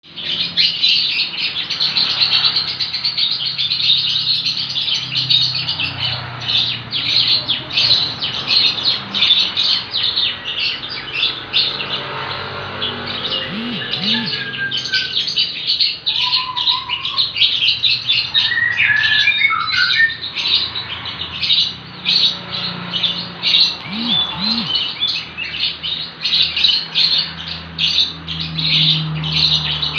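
A young lovebird in a long unbroken ngekek: a continuous run of rapid, high chirps with hardly a pause, broken by a few brief gliding notes midway. A faint steady low hum runs underneath.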